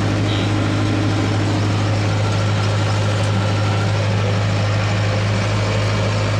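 Hydraulic excavator's diesel engine running steadily at idle, a constant low drone.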